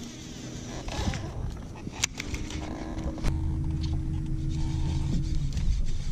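Baitcasting reel clicking into gear with a few sharp clicks about two seconds in, then a steady whirring hum as line is reeled in against a bass that struck the frog lure.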